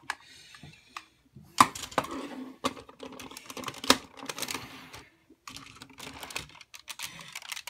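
Hard plastic parts of the Go-Onger G9 formation combining-robot toy clicking and knocking as they are handled and plugged together, with irregular sharp clicks and rustling handling between them.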